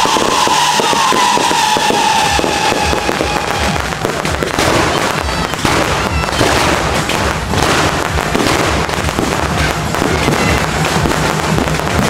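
Aerial fireworks display: a dense, continuous barrage of pops, bangs and crackling bursts. A long whistle falls slowly in pitch over the first three seconds or so.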